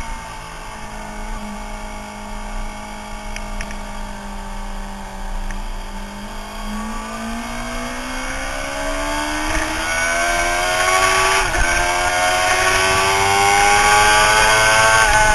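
Onboard sound of a Suzuki sportbike engine. The revs fall over the first few seconds as the rider rolls off the throttle, hold low for a few seconds, then climb steadily under acceleration, with a short dip in pitch about two-thirds of the way through. Wind rush grows louder as the bike speeds up.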